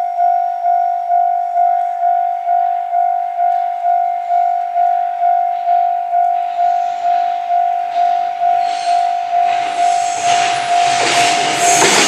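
Japanese level-crossing warning bell ringing its repeated electronic "kan-kan" tone, about two strokes a second. From about two-thirds in, the rushing noise of an approaching train builds up beneath it and grows loud near the end.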